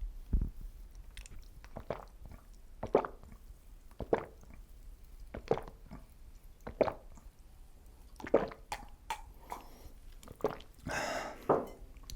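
A series of short, soft knocks and clicks about every second, with a brief longer rustle near the end: food and utensils being handled.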